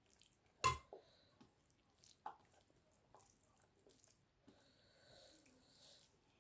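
Quiet eating sounds: a sharp click, like a utensil or dish, a little under a second in, then a few soft clicks and wet mouth and food noises.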